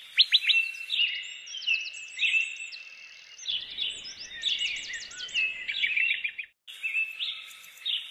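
Birdsong: several birds chirping and trilling in quick, overlapping phrases, with a brief break about six and a half seconds in.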